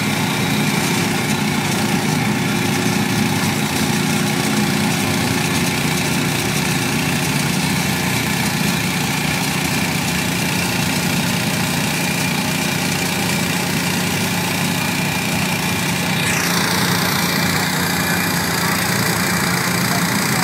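Bolens garden tractor engine running steadily as the tractor floats and drives through a pond on oversized mud tires. Its sound shifts abruptly about three-quarters of the way through.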